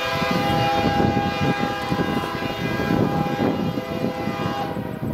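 A distant approaching freight train's lead-locomotive air horn sounding one long chord of several steady notes, cutting off near the end, over a low rumble of wind.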